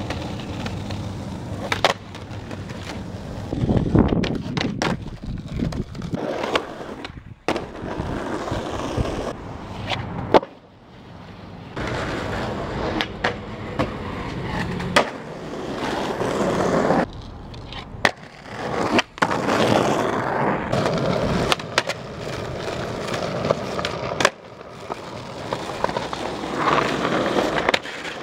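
Skateboard wheels rolling on asphalt and concrete, broken by sharp clacks of tail pops and landings and by trucks grinding along concrete ledges, across several short clips that cut abruptly from one to the next.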